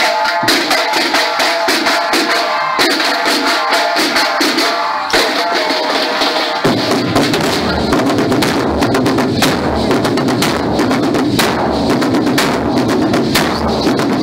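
Marching band drumline playing: snare drums keep a quick rhythm under a pitched melody, then about six and a half seconds in the big bass drums come in with fast, heavy strokes that fill the rest.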